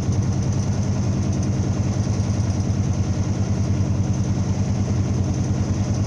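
Albin AD21 inboard diesel engine running steadily under way, with an even, fast low pulse.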